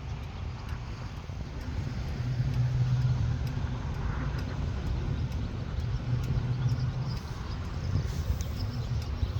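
Low, steady engine rumble, swelling about two seconds in and again around six seconds.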